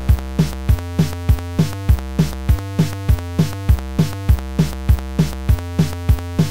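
Electronic background music: pitched notes changing in steps over a steady, thumping beat of about three beats a second.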